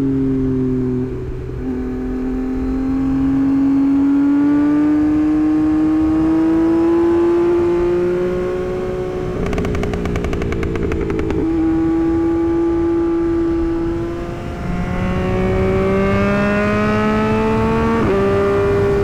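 Tuned Yamaha MT-09's three-cylinder engine and exhaust on the move. Its note rises slowly as the bike pulls and steps at gear changes about a second in, around the middle and near the end. Around the middle comes about two seconds of rapid stuttering crackle.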